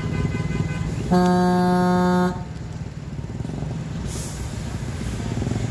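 Road traffic passing, with a vehicle horn sounding one steady blast of a little over a second about a second in; steady engine and tyre noise goes on around it.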